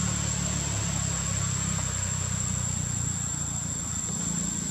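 A low, steady engine-like rumble with a constant high-pitched whine above it.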